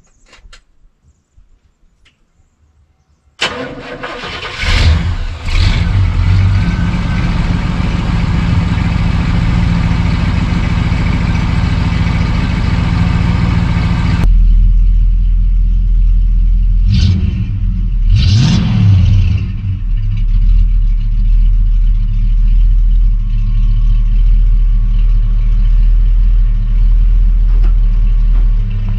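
A 7.4-litre 454 big-block V8 motorhome engine starts up suddenly about three seconds in and keeps running steadily. Partway through the sound turns abruptly heavier and deeper, with two brief rises and falls in engine speed.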